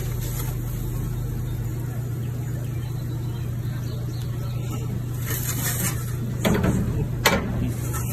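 A steady low hum, like a motor running, with a short scrape and a sharp metallic click near the end as a metal pizza peel works a pizza on the floor of a wood-fired oven.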